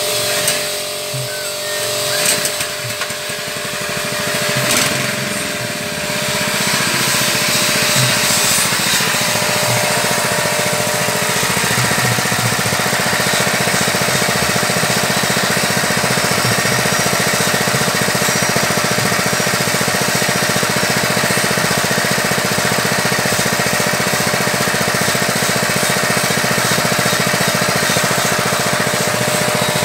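Small gasoline engine driving a fish-feed pellet machine, running steadily; it grows louder about six seconds in and then holds an even pitch.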